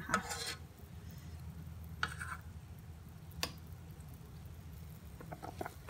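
A metal spoon clinking and scraping against a stainless steel pot while skimming foam off a boiling pork braise: a scrape at the start, another about two seconds in and a sharp click about three and a half seconds in, over a steady low hum.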